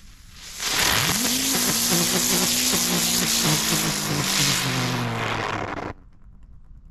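Bručoun ground firework burning: a loud hiss with a low drone that climbs quickly in pitch as it takes off, then sinks slowly, and stops suddenly after about five seconds, without a bang.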